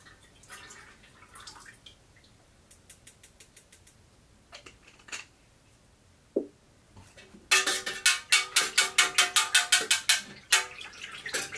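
A stirring utensil clinking rapidly against the side of a metal pouring pitcher of melted soy wax, about five strikes a second, starting about two-thirds of the way in. Before that, only faint small ticks and one light knock.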